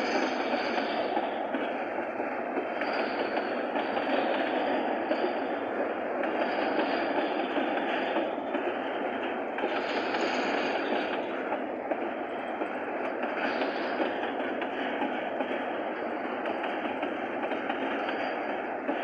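Freight train rolling past, a steady rumble and rattle of wagons on the rails.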